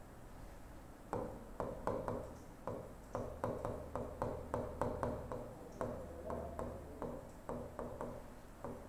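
Stylus tip tapping and sliding on the glass of an interactive display during handwriting: faint light clicks, about two or three a second, starting about a second in. A low steady hum runs underneath.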